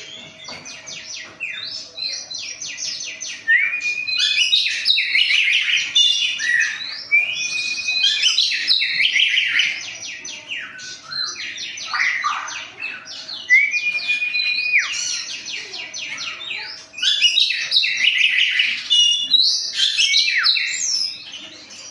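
Songbird singing in repeated phrases of fast chattering notes and trills, several of them opening with a long held whistle.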